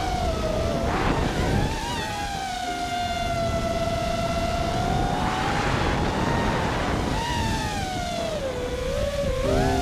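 FPV freestyle quadcopter's brushless motors whining, the pitch mostly holding steady then dipping and climbing back with throttle near the end, with patches of air rushing over the onboard camera's microphone.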